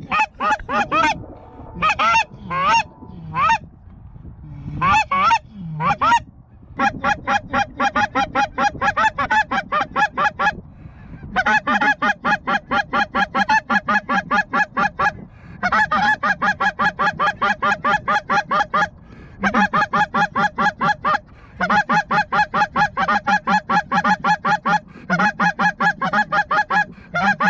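Goose call blown in fast, even runs of honks, about five a second, each run broken off by a short pause, with a few scattered, uneven honks in the first few seconds. It is calling to work an approaching flock of geese in toward the decoys.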